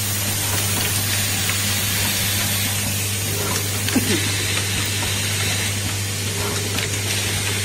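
An automatic bimetal contact riveting machine running: a steady low hum over an even hiss, with a single click about four seconds in.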